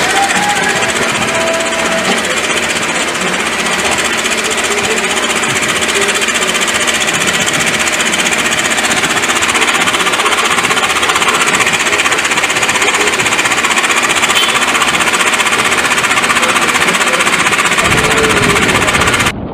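Rapid, steady mechanical hammering, loud and unbroken, cutting off suddenly near the end.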